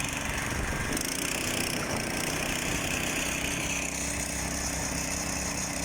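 Small engine of a motor scooter running steadily, with an even low drone and a constant hiss over it.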